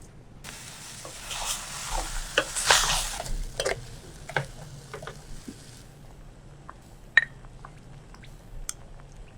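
Frozen berries being cooked in a pot with sugar and lemon juice: a hissing rush lasting a few seconds, with sharp clinks of a spoon or utensil against the pot, then scattered light clicks.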